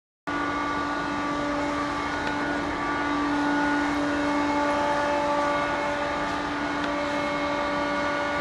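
A machine running steadily with a constant hum and an even rushing noise, starting suddenly a moment in.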